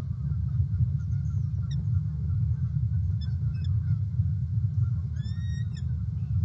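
Steady low rumble with a few faint, distant bird calls. About five seconds in comes a clearer rising call, about half a second long.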